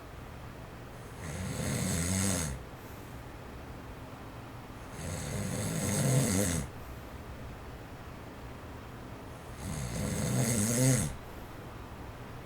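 A man in his forties snoring in his sleep: three loud snores about four seconds apart, each about a second and a half long. Between the snores an electric fan on its low setting runs faintly and steadily.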